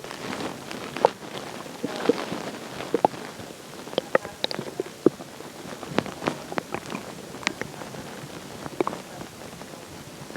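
Stomach gurgling after drinking water: an irregular run of small watery pops and clicks, with a few short squeaky gurgles among them.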